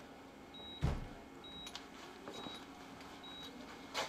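A bedside patient monitor beeps steadily: a short, high beep just under once a second. Over it come the taps and knocks of crutches on the floor, a heavy thump about a second in and a sharper knock near the end.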